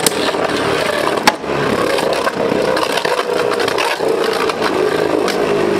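Two Beyblade Burst tops, Rage Longinus and Vanish Fafnir, spinning and colliding in a clear plastic stadium. They make a steady scraping whir with a hum that slowly drops in pitch as they lose spin. Clicks of the tops striking each other break in, with one sharp clash about a second in.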